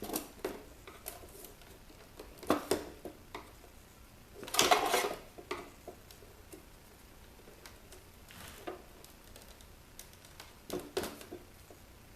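Hand-disassembly handling noise: scattered clicks and knocks of a screwdriver and plastic and metal parts of a car DVD player's casing, with a louder scraping rustle about four and a half seconds in and another cluster of knocks near the end.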